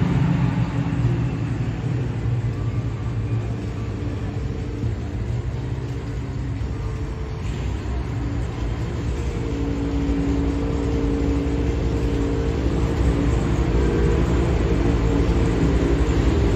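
Engines of small open-wheel formula race cars running, a steady low engine drone. A steadier engine note joins about ten seconds in, and the sound grows a little louder towards the end.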